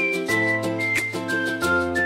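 Background music with a steady beat and a high, stepping melody line.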